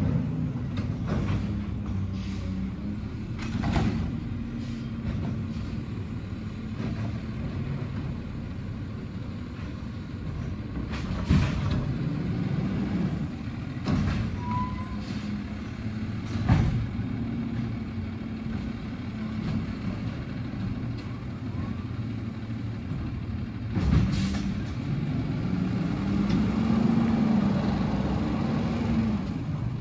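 Garbage truck's diesel engine running steadily down the street, with several short sharp hisses and knocks that fit air brakes and bin handling. Near the end the engine revs up and back down as the truck pulls ahead.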